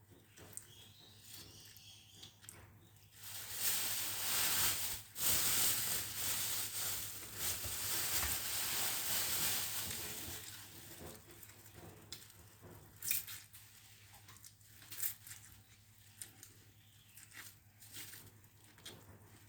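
Close-miked eating of pansit noodles: wet chewing with small smacks and clicks, and a loud stretch of plastic rustling from about three to ten seconds in as the noodles are handled in their plastic bag.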